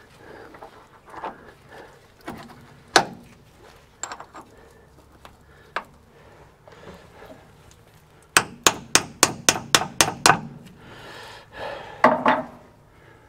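Sharp metallic knocks and taps from work on a greasy steel roller drive chain and its sprocket as a link is fitted: a single hard knock about three seconds in, then a quick run of about nine taps, roughly four to five a second, and a short cluster of clanks near the end.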